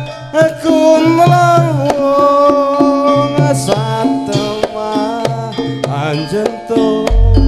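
Javanese gamelan (karawitan) music in Sragenan style: steady kendang hand-drum strokes under a sustained, sliding melody line, with a deep bass coming in near the end.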